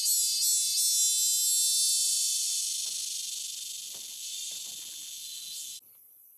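Insects shrilling in a loud, dense chorus, a high continuous buzz that pulses at first and then slowly fades. It cuts off suddenly near the end.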